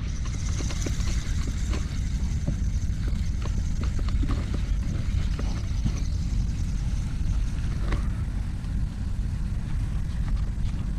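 Wind buffeting a handheld camera's microphone, a steady low rumble, with scattered small clicks from the fishing rod being handled.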